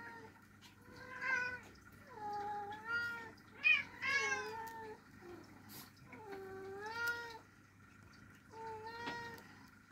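Very young Ragdoll kitten mewing, about half a dozen short high calls that dip and rise in pitch, with gaps of a second or two between them.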